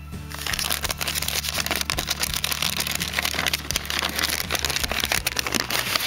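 Paper crinkling and rustling as hands unwrap packaging, a dense run of crackles starting about a quarter-second in, over background music.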